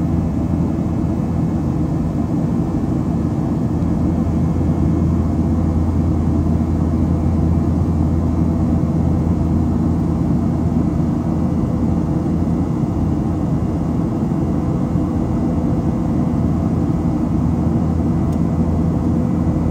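Steady cabin noise of a Boeing 737-800 in flight, heard from a window seat beside the engine: its CFM56-7B jet engines running evenly, a deep hum with several steady tones over a rushing hiss.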